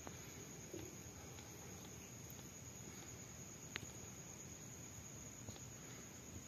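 Very quiet room tone with a faint steady high-pitched whine, and a single sharp click a little past halfway. The kitten is not meowing.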